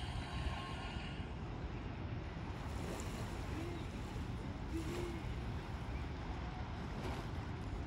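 Wind buffeting the microphone outdoors: a steady, fluttering low rumble, with two faint short tones in the middle.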